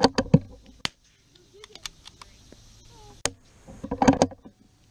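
The bolt of a Bergara B-14R .22 LR bolt-action rifle being worked by hand: a quick cluster of metallic clicks and clacks as it is cycled, once at the start and again around four seconds in. A few single sharp ticks fall in between.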